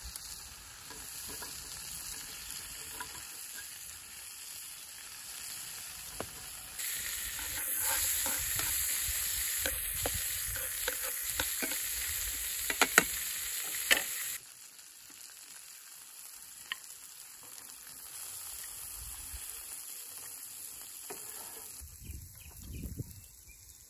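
Lamb chops and chopped vegetables sizzling in a frying pan over a rocket stove. The sizzle gets louder for several seconds as they are stirred and turned with metal tongs, with a few sharp clicks of the tongs on the pan. Then it drops away suddenly to a quieter hiss.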